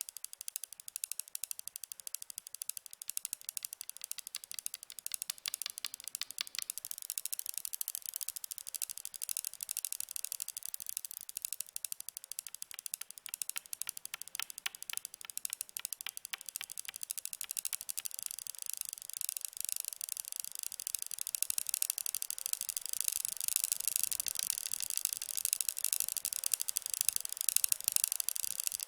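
Rapid, continuous ticking: a dense run of sharp, dry clicks, high-pitched and rattle-like, growing somewhat louder in the second half.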